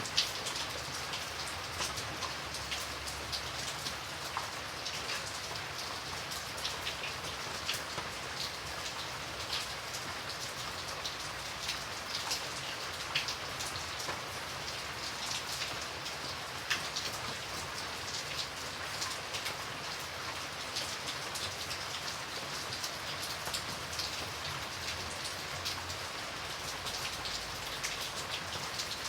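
Steady rain falling, a continuous hiss with many scattered drops ticking on a surface.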